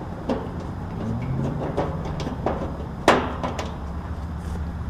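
A few light clicks and knocks, the sharpest about three seconds in, over the steady low hum of running rooftop air conditioner units.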